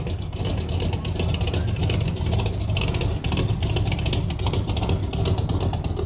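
A car engine running loudly with a rough, rapidly pulsing rumble, fairly steady throughout.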